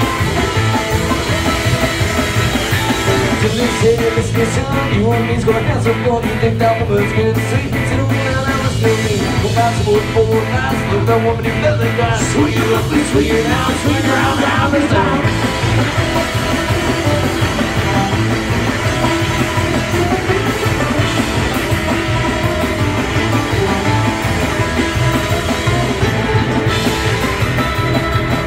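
A punk band playing live and loud: electric guitar and a plucked string instrument over a drum kit keeping a fast beat, with a man singing.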